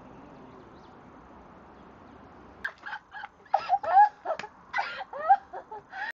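A young woman laughing loudly in short, high, pitch-bending bursts, starting about two and a half seconds in over a faint steady hiss. The laughter cuts off suddenly near the end.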